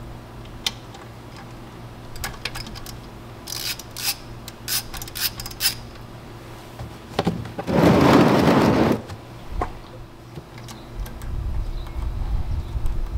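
Sharp metallic clicks and taps of a socket and ratchet being handled and fitted to the gear-oil drain plug on an outboard's lower unit. About eight seconds in comes a loud rasping burst lasting about a second, and a low rumble follows near the end.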